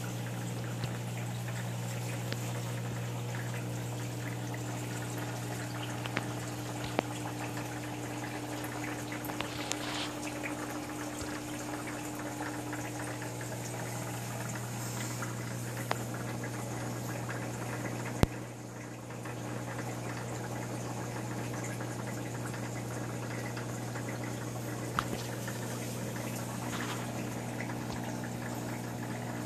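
Reef aquarium's pumps and water flow running: a steady low hum with a constant wash of trickling, bubbling water. A single sharp click comes about two-thirds of the way through.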